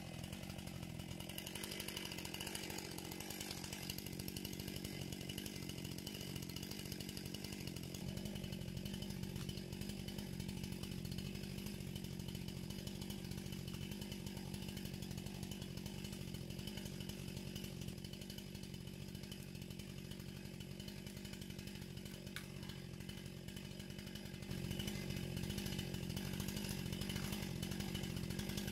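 Chainsaw running steadily, getting louder near the end.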